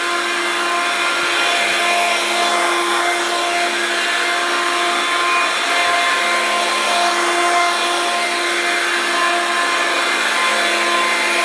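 Hoover Platinum Collection Linx 18-volt cordless stick vacuum running steadily: an even rush of air with a constant motor whine.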